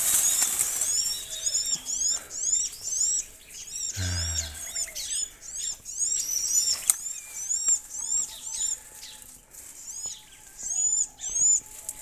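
A bird calling in a rapid series of short, high chirps, each rising then falling in pitch, repeated several times a second with brief pauses.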